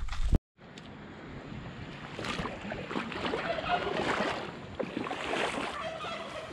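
Footsteps ending in a loud thump, then after a brief dropout, river water splashing and rushing with many irregular splashes, growing louder about two seconds in.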